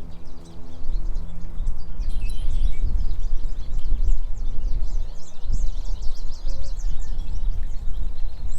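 Wind buffeting the microphone in a low rumble, with many short bird chirps over it.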